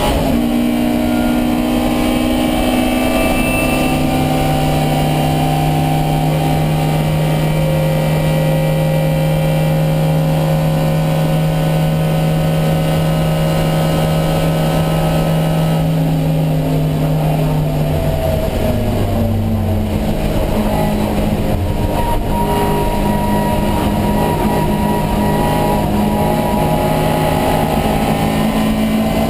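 Alfa Romeo Giulia 1600's twin-cam four-cylinder race engine running hard, heard onboard. It holds a steady note for long stretches, and the note changes at the start and again about two-thirds of the way through.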